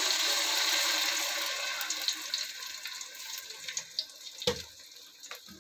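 Garlic, ginger and onion paste hitting hot ghee in a steel pot: a loud sizzle that dies down steadily over a few seconds as the paste goes in. A few short knocks in the second half.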